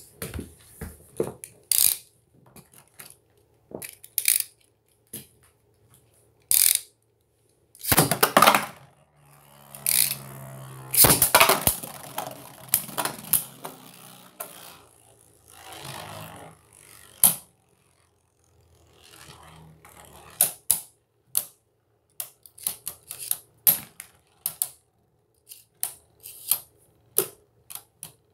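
Plastic Beyblade battle tops spinning and clattering against each other and the walls of a plastic stadium, in scattered sharp clicks and knocks. There are two longer, loud rasping stretches about eight and eleven seconds in, and dense runs of rapid clacks in the last several seconds as the two tops grind together.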